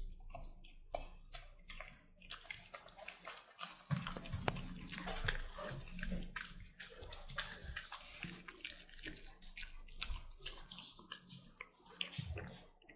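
A dog chewing and gnawing a meaty pork bone: irregular wet smacking and licking with scattered sharp clicks and crunches.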